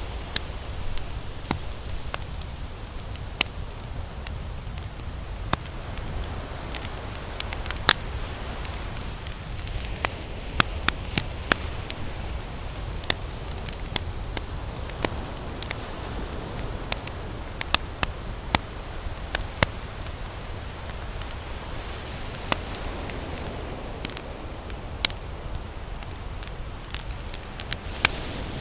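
Campfire crackling, with sharp pops at irregular intervals over a steady low rushing noise.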